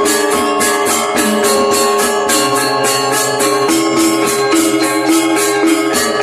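Balinese gamelan gong kebyar playing, with the reyong gong-chime row and other bronze metallophones ringing over a fast, even shimmer of metallic percussion strokes.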